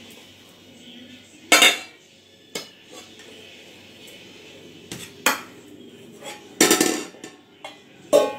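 Stainless steel pot lid clanking against a steel pot as it is pushed and lifted: a series of separate metal clanks, the loudest about a second and a half in, a longer clatter about two-thirds through, and a clank that rings briefly near the end.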